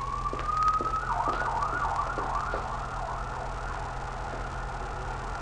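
Emergency vehicle siren: a long wail rising in pitch, which about a second in switches to a fast yelp wavering up and down. A few light knocks sound underneath.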